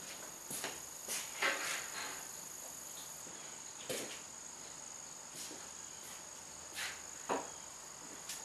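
Cricket trilling steadily on one high note, with a few light knocks and clicks scattered through, the loudest about a second and a half in.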